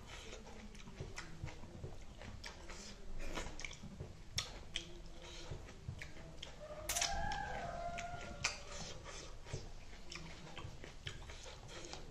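Close-miked chewing and wet mouth sounds of someone eating spicy chicken wings, with scattered irregular smacks and clicks.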